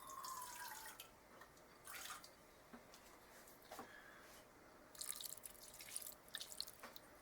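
Water poured in a small amount into a pan of seasoned ground beef: a faint trickle, then scattered drips and small splashes.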